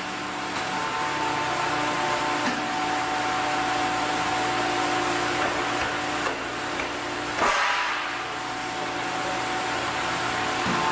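Factory machinery running: a steady motor whir with a constant hum under it, broken briefly about seven and a half seconds in.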